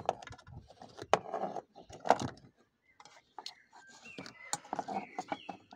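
Handling noise: a scatter of sharp clicks and knocks with rubbing and rustling, the phone brushing against car seat fabric, and a few short squeaks in the second half.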